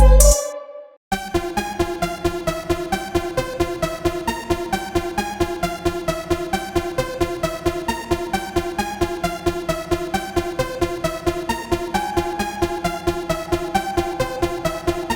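Software synthesizer (In Reach Audio's Versatile VST) playing a one-key melody preset: after a short gap about a second in, a rapid, evenly pulsing sequence of electronic notes with no deep bass.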